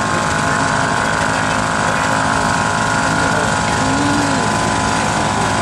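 Engines running steadily with a fast, even chugging beat, typical of the working stationary engines at a vintage rally.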